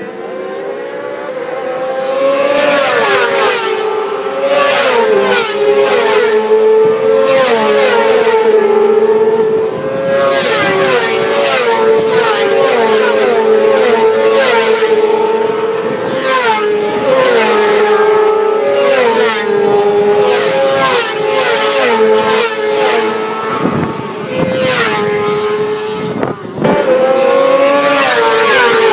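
600 cc racing sport-bike engines at full throttle, several bikes together, revving up and shifting up through the gears: the pitch climbs, drops sharply at each gear change, and climbs again, over and over.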